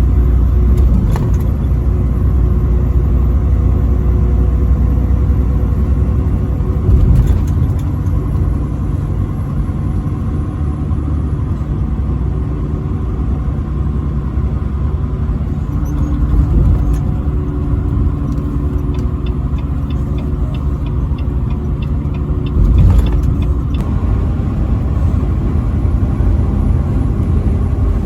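Steady engine and tyre rumble of a vehicle driving at highway speed, with a couple of louder thumps, one about a quarter of the way in and one near the end, and a brief run of quick ticks shortly before the second.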